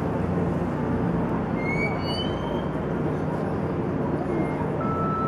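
City street ambience: a steady rumble of traffic, with a few faint high tones about two seconds in.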